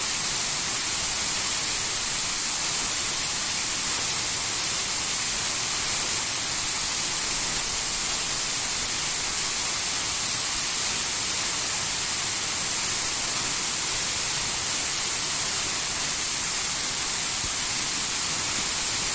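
Waterfall: falling water making a steady, even, rather high-pitched hiss without a break.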